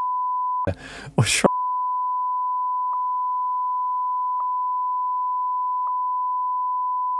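Censor bleep: one steady, high, pure tone masking spoken spoilers, broken just under a second in by a short snatch of unbleeped voice, with faint ticks in the tone about every one and a half seconds.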